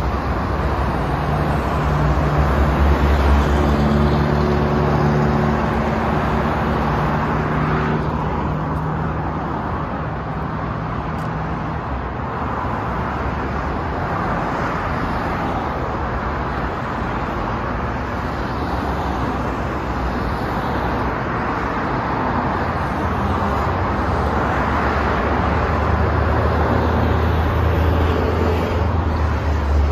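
Road traffic on a multi-lane city road: a continuous rush of tyres and engines. A heavier engine's steady drone runs through roughly the first ten seconds, and a deeper rumble builds near the end.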